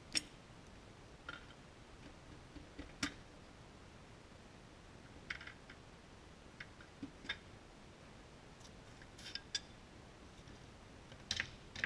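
Scattered light clicks and taps of metal parts being handled as a piston and connecting rod are worked out of a cylinder bore in a 1963 GMC 305 V6 engine block. The taps come at uneven intervals, a sharper one near the start, another about 3 s in and a cluster near the end.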